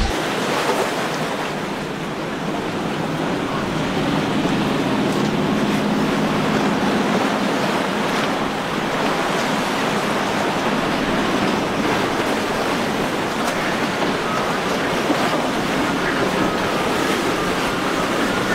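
Surf and breaking waves rushing steadily, with wind buffeting the microphone. A center-console boat's outboard motor runs faintly underneath as the boat crosses the chop.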